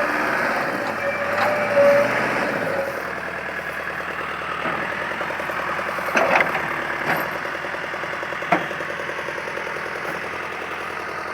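Caterpillar 428C backhoe loader's diesel engine running as the machine works, with a steady high whine over the first few seconds and two sharp metallic knocks, about six and eight and a half seconds in.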